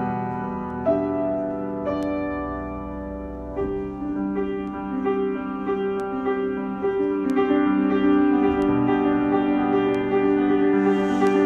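Solo piano improvisation: sustained chords with single notes struck over them. The playing grows busier about a third of the way in and louder in the second half.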